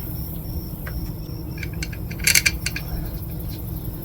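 Small metal parts of a diesel heater being handled: scattered light clicks and a quick cluster of sharp metallic clinks about two and a half seconds in.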